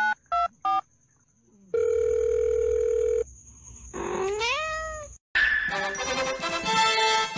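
Two short touch-tone phone keypad beeps, then a steady beep about a second and a half long, as a finger boops a tabby kitten's nose. A kitten's short rising meow follows, and music begins about five seconds in.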